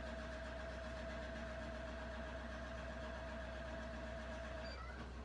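Steady mechanical hum with a single slightly wavering tone, cutting off near the end.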